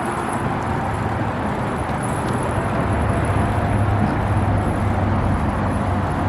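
Steady highway traffic noise, an even rush with a low hum underneath.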